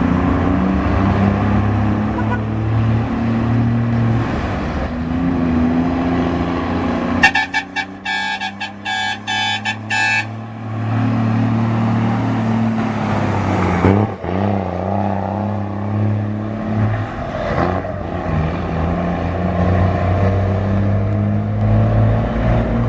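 Ford Cargo truck's diesel engine running with a steady, deep rumble. A multi-tone horn sounds in rapid pulses for about three seconds near the middle. The engine note briefly dips and picks up again about fourteen seconds in.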